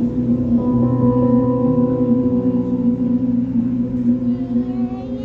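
The close of a song: a male singer holds a long note over a sustained chord on a Yamaha grand piano, easing off near the end.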